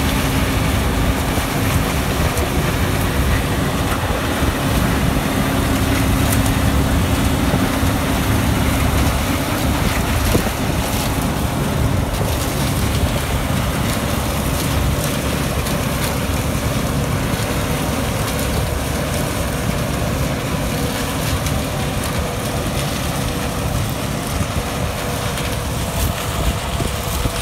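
New Holland CX6090 combine harvester running steadily as it cuts sunflower, with a steady low engine hum under a broad mechanical and threshing noise. It fades a little as the machine moves away, and wind buffets the microphone.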